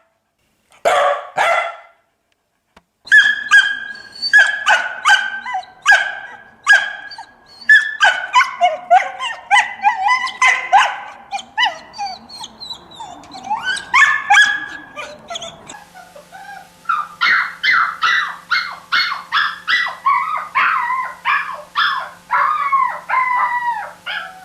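Dogs barking and yipping in a string of separate recordings: two barks, then a long run of high-pitched yips, then quicker high yelps and whines that bend in pitch, over a steady electrical hum in the last third.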